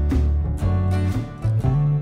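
Background music: plucked guitar notes over a steady, changing bass line.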